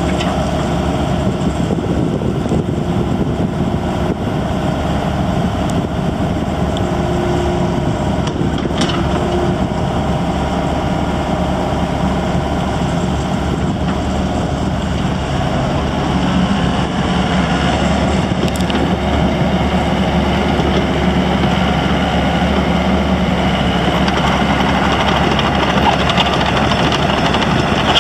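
Daewoo Solar 55VP midi excavator's diesel engine running steadily while the upper structure swings round on its tracks. It gets a little louder about halfway through.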